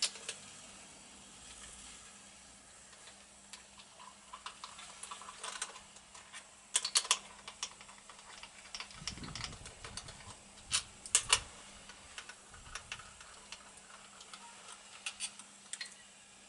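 Scattered light metallic clicks and clinks of engine parts and hand tools being handled during a motorcycle engine teardown, with quick clusters of taps and one dull low thump about 9 seconds in.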